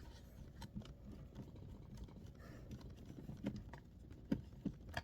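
Faint, scattered clicks and taps of a screwdriver and small screws against a laptop's plastic case while its Torx screws are taken out.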